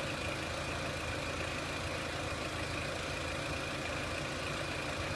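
Renault Clio 1.6 petrol four-cylinder engine idling steadily.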